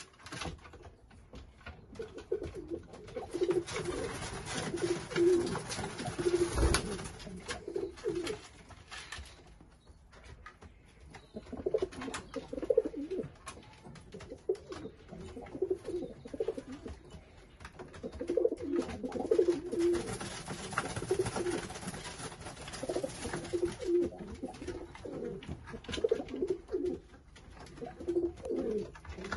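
Several domestic pigeons cooing in repeated bouts, with a brief lull about ten seconds in. A single short thump about seven seconds in.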